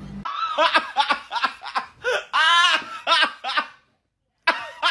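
A person laughing hard in quick repeated bursts, which break off suddenly about four seconds in; after a short silence, laughing starts again.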